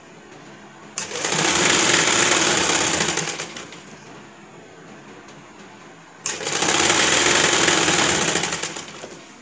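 Domestic sewing machine stitching lace onto net fabric in two runs of about three seconds each, one starting about a second in and the other past the middle. Each run starts abruptly, holds a fast even stitching rhythm, then slows away.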